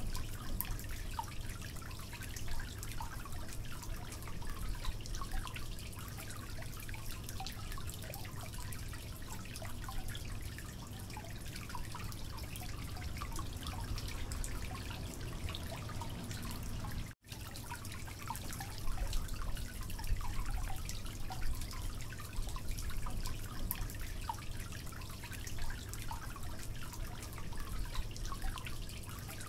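Egg omelette frying in oil on a black iron griddle, crackling and spitting steadily over a low hum. The sound drops out for an instant a little past halfway.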